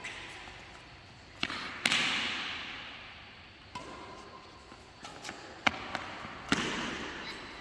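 A shuttlecock being struck back and forth in a rally: five or so sharp hits spaced one to two seconds apart, each dying away briefly, the loudest about two seconds in.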